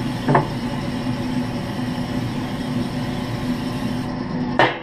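Aerosol can of grill oil spraying onto the grill grates, a steady hiss for about four seconds that then stops.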